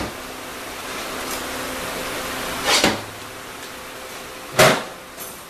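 Workshop handling noise from transmission parts and tools at a workbench: two short clunks a couple of seconds apart, the second louder, over a steady hiss.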